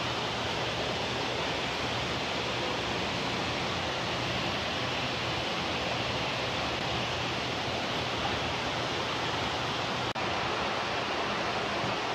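Steady rushing of greenhouse fans running, with a low hum beneath it; the sound dips for an instant about ten seconds in.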